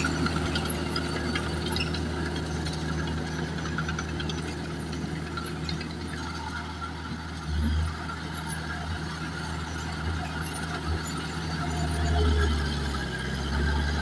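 Heavy diesel earthmoving machine running steadily, its low engine drone mixed with squeaks and light clatter; the engine swells briefly about halfway through and again near the end.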